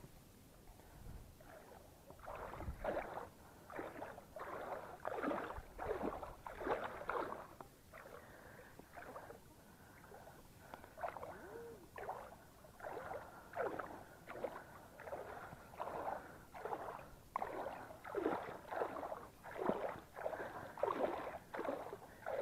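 Fishing reel cranked in rhythmic strokes of about two a second while reeling in a hooked striped bass. The cranking pauses for a few seconds midway, then resumes.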